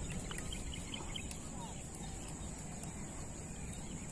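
Quiet outdoor ambience: a low steady rumble and a thin steady high hiss, with a few faint short bird chirps in the first second or so.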